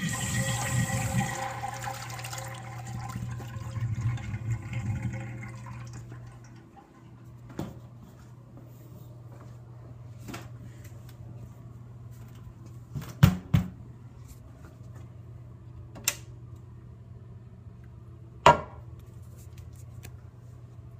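A restroom fixture flushing. Water rushes with a whining valve tone for about six seconds, then dies down to a quiet trickle over a steady low hum. A few sharp knocks and clicks follow, the loudest a double knock past the middle.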